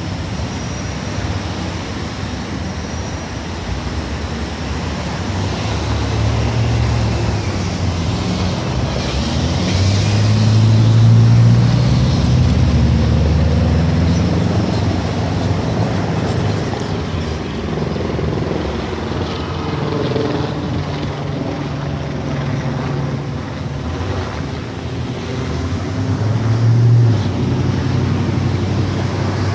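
City street traffic: cars and heavier vehicles passing, their engine rumble swelling about a third of the way in and again near the end.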